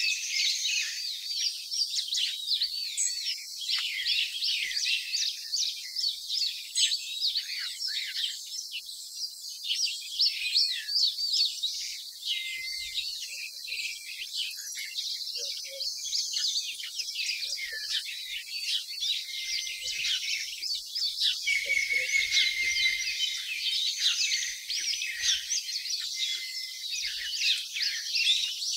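Many small birds chirping and twittering together in a dense, continuous chorus, with a thin high steady trill coming and going now and then.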